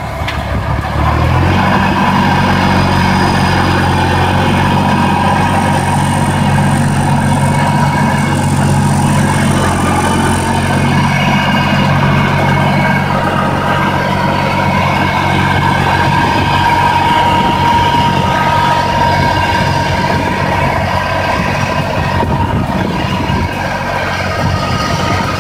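Fendt 211 tractor engine running steadily under load while pulling a 4 m Alpego harrow through tilled soil, with a steady whine above the engine note. The engine sound swells up about a second in, then holds even.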